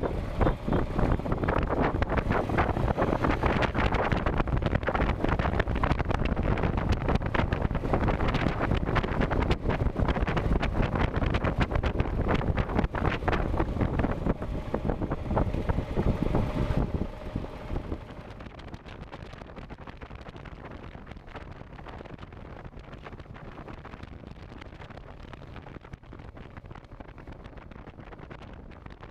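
Wind buffeting the microphone of a motorcycle camera while riding, with the engine running underneath. About seventeen seconds in, the noise drops sharply to a much quieter, steady hiss.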